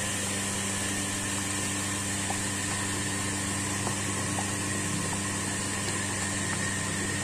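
Steady machine hum with a hiss, like a fan or kitchen appliance running, and a few faint soft pops from the thickened lomi soup simmering in the wok.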